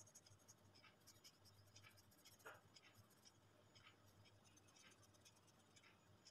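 Faint scratching of a coloured pencil shading on paper, in short repeated strokes.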